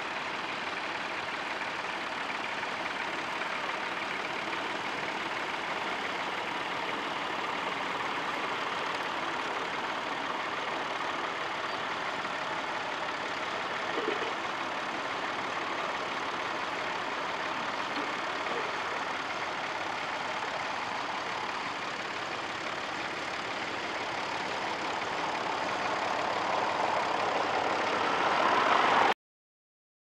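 Grey Ferguson tractor's engine running steadily under load as it pulls a plough, growing louder over the last few seconds, then cutting off suddenly.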